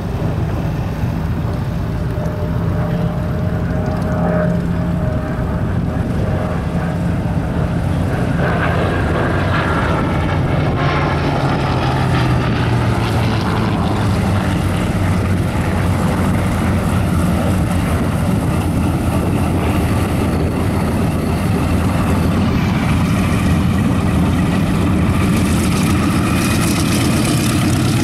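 Lockheed P-38 Lightning's twin Allison V-12 engines running at taxi power as it rolls past, their pitch dropping as it goes by about halfway through. Near the end a P-47 Thunderbolt's Pratt & Whitney R-2800 radial engine comes in close.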